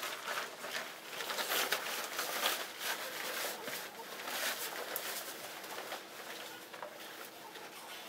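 Rustling and swishing of winter jackets and other clothing being hurriedly pulled on, a busy run of irregular fabric scrapes that eases a little near the end.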